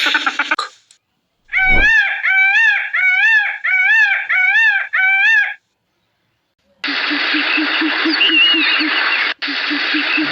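An animal calling seven times in quick, even succession, each call a short rising-and-falling cry. After a pause, a different harsh, noisy sound with a fast low pulsing begins near the end.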